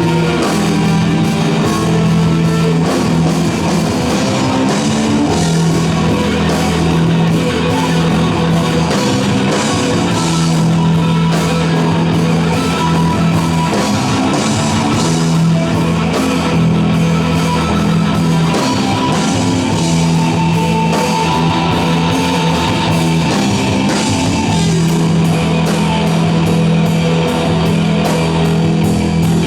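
Rock band playing an instrumental passage: electric guitars and drum kit with cymbals, over a low note held in phrases that return every few seconds.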